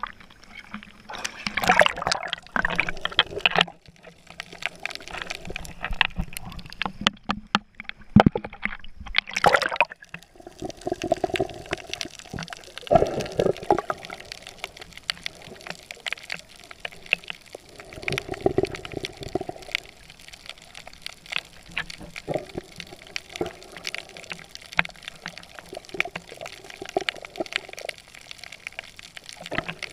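Seawater splashing and sloshing around a camera held at the surface. About ten seconds in, the camera goes under and the sound turns muffled, with many small crackling clicks.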